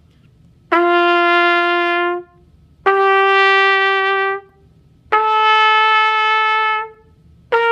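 Trumpet playing a slow rising line of held notes, G, A, B and high C, each about a second and a half long with a short breath between, every note one step higher than the last. The high C begins just before the end, reached with the same open fingering as the G by tightening the embouchure.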